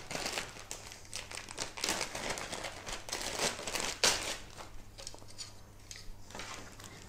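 Plastic packaging crinkling and rustling as it is handled, in irregular crackles with louder rustles about two and four seconds in.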